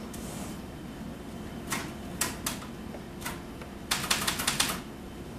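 Typewriter keys being struck: a few single keystrokes, then a quick run of about eight keystrokes near the end.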